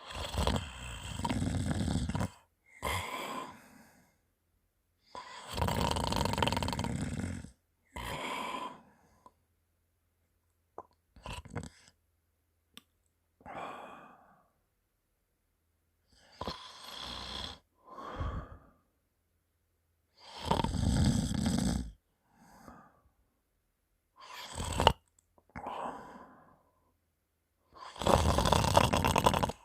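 A sleeping person's loud, phlegmy snoring after drinking alcohol, thick with mucus in the throat: four long snores with shorter, softer breaths between them.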